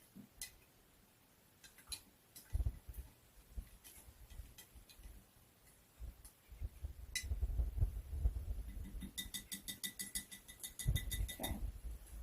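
A mixing spoon stirring a jar of oil, water and paint, clinking against the jar: scattered single clinks, then a rapid run of ringing clinks near the end, with low rumbling from handling the jar.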